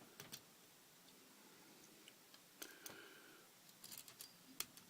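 Faint, scattered metallic clicks and scratches of a lock-pick rake being worked in the keyway of a five-pin brass padlock under tension-wrench pressure, as the pins are raked toward the shear line.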